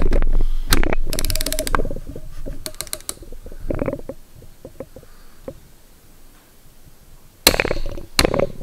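Ratchet wrench clicking in short rapid runs as it is swung back and forth on the cylinder-head nuts of a 6.5L diesel, pulling them to their final 100 foot-pounds on new head studs. Sparse ticks follow, then a louder clatter of the tool on the engine near the end.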